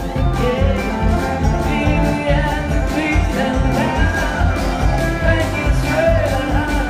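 Live jamgrass band playing with acoustic guitar and a steady drum beat, melodic lead lines on top, heard through the PA from the audience.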